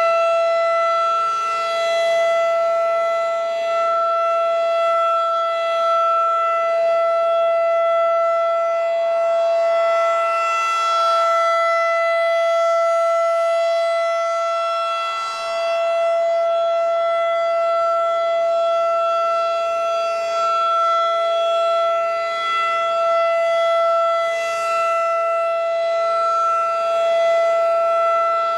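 Federal Signal 2001-DC electromechanical civil-defense siren sounding a steady, unwavering tone at full speed during its monthly test.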